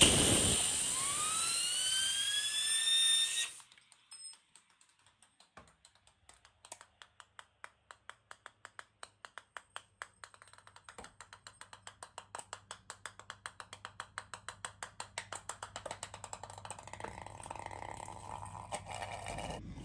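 A compressed-air blow gun hissing into a 3D-printed PLA finned spinner wheel, the wheel spinning up with a whine that climbs in pitch; the air cuts off suddenly about three and a half seconds in. After that, the released wheel clatters on a tiled floor in a run of ticks that come faster and faster as it settles down on its side.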